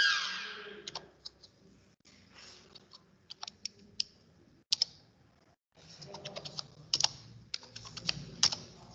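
Typing on a computer keyboard: irregular single key clicks, sparse at first and coming faster in the last few seconds. At the very start a steady tone dies away with a falling slide.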